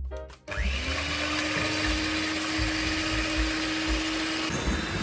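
Electric hand mixer starting up about half a second in, its motor rising quickly to a steady whine as the twin beaters whisk raw egg whites in a glass bowl.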